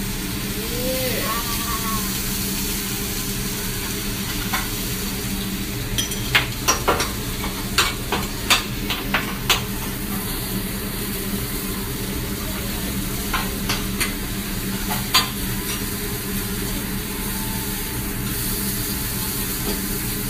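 Food sizzling on a hibachi flat-top griddle while the chef's metal spatula scrapes and clacks against the steel, with a run of sharp clacks about six to ten seconds in and a few more around fourteen to fifteen seconds, over a steady low hum.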